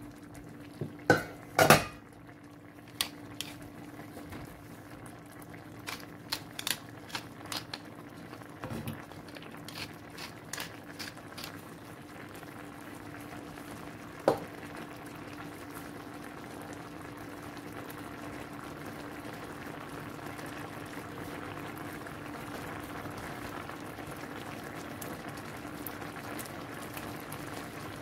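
Coconut-milk sauce with mussels simmering in a nonstick pan, bubbling steadily and a little louder in the second half. Over roughly the first dozen seconds a wooden spoon stirs, clicking and knocking against the pan and the mussel shells; the loudest knocks come a second or two in, and there is one more sharp knock near the middle.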